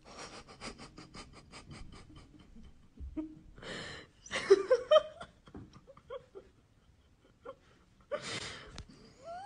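Quick, evenly spaced panting breaths, about six a second for the first two seconds, then breathy laughter that is loudest about halfway through, with a last breathy laugh near the end.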